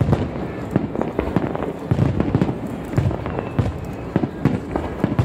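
Fireworks display: aerial shells bursting overhead in a rapid, irregular string of bangs and deep booms that overlap one another.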